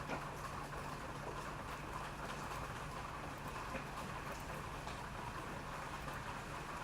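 Steady rain falling, a continuous patter with scattered individual drops, over a faint low hum.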